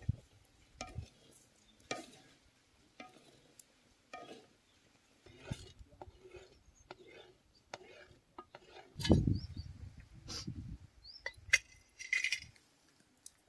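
Scattered clinks and knocks of metal cooking utensils and pots, with a heavier clatter about nine seconds in.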